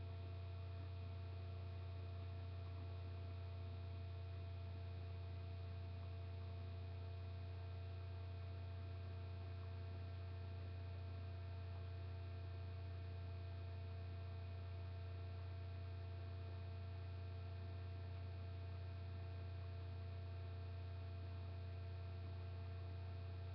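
Steady, unchanging low electrical hum with a few faint higher steady tones over a faint hiss, typical of a webcam's built-in microphone picking up its own circuit noise; no rainfall stands out from it.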